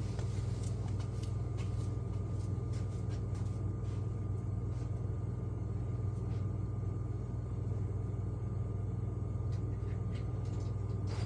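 A steady low mechanical hum with a faint high whine over it, and a few light clicks and knocks of handling.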